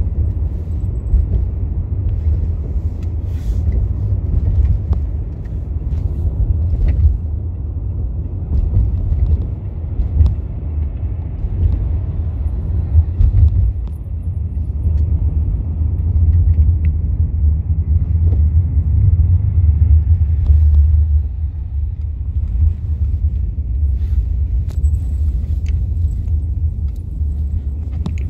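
Inside a 2003 New Flyer D40LF diesel city bus under way: a steady low engine and road rumble, swelling a little about two-thirds through, with scattered light clicks and rattles.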